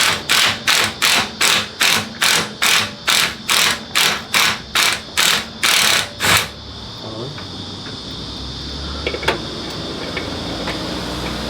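Hand ratchet wrench turning a bolt, about fifteen quick ratcheting strokes at a little over two a second, stopping about six seconds in. A couple of small metal clinks follow near nine seconds.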